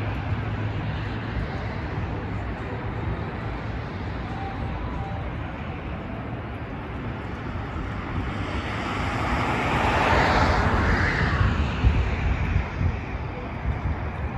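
Outdoor road traffic noise, a steady rumble with a vehicle passing that swells loudest about two-thirds of the way through and then fades.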